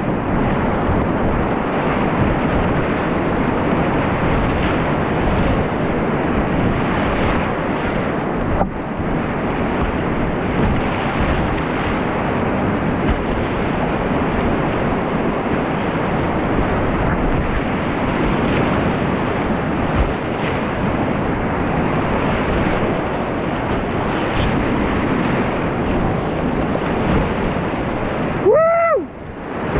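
Whitewater of the Ötztaler Ache rushing steadily and loudly around a kayak. Near the end the rush cuts out for about a second, and a short pitched sound bends up and down.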